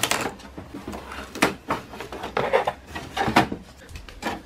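Packing cardboard and tape being pulled out of a printer's plastic input tray: several short scrapes, rustles and knocks of cardboard against plastic.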